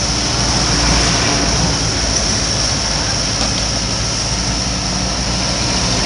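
Sumitomo 160AJ crawler excavator's diesel engine running steadily under load as the machine drives forward on its tracks, a low drone with a steady high hiss over it.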